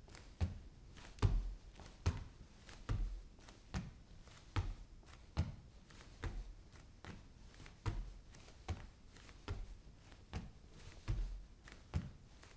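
Bare feet walking at a steady pace on a wooden floor: soft, low footfall thuds, roughly one step every 0.8 seconds.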